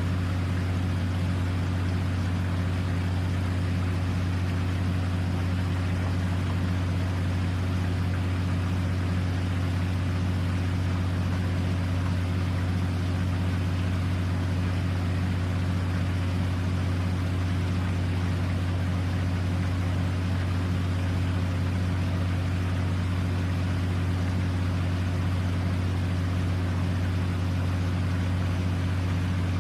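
A motor running at a constant speed: a steady, low, unchanging drone.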